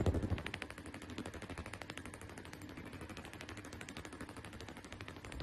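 Ultrasonic skin scrubber handle of a hydrofacial machine running in a pulsed working mode, pressed against the skin: a fast, even rattle of clicks, more than ten a second. A louder low knock comes right at the start.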